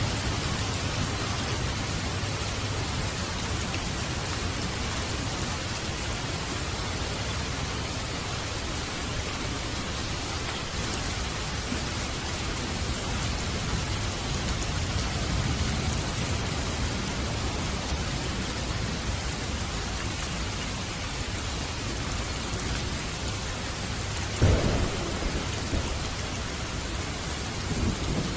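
Steady heavy rain with a low rumble of thunder underneath; about 24 seconds in, a sudden louder thunder clap.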